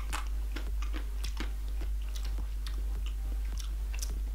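A person chewing a bite of a chocolate-coated dairy-free Magnum Classic ice cream bar: irregular clicking mouth sounds, a few a second, over a steady low hum.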